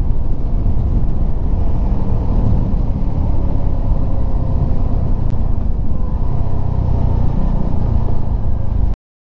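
Wind and riding noise on a moving CF Moto 300SR motorcycle: a steady low rumble with the engine's faint hum behind it, picked up by a lavalier mic wrapped in cotton, plastic and a dead cat to damp the wind. It cuts off suddenly near the end.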